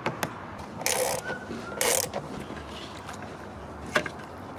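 Hand work fitting a rear spoiler onto a microcar's roof: two short rasps about a second apart, then a single sharp click near the end.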